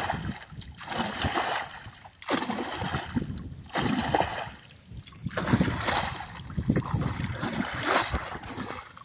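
Shallow muddy water sloshing and splashing in repeated bursts, about one every second or so, as a long hooked stick is jabbed and stirred through the water and the mud of the canal bed.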